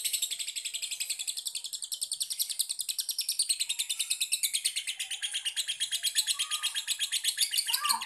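Lovebird, a Fischer's lovebird, giving a long unbroken ngekek: a rapid, high chattering trill of many chirps a second.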